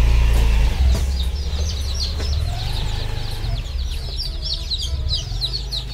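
A crowd of newly hatched chicks peeping continuously, many short high calls overlapping, over a steady low rumble.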